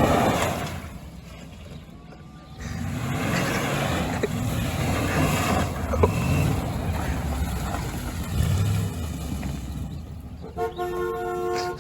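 Truck engine revving and pulling hard with two exhaust turbo whistles fitted in the tailpipes, a rushing whistling noise over the engine rumble. Near the end a steady multi-note tone holds for about a second.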